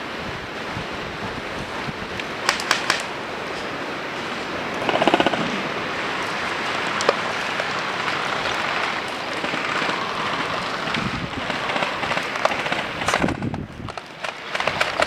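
Airsoft guns firing during a game: scattered sharp shots and a short rapid burst about five seconds in, over steady rustling and wind noise on the microphone.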